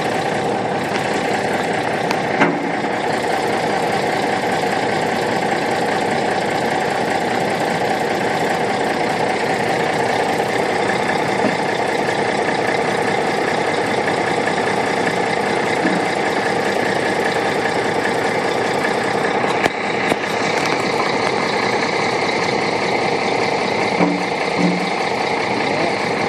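Boat-hauling truck's engine idling steadily, with a couple of brief knocks.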